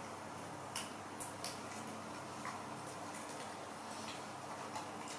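Young macaques eating green vegetables by hand: a few sharp little clicks and crunches of chewing and handling food, over a steady background hiss.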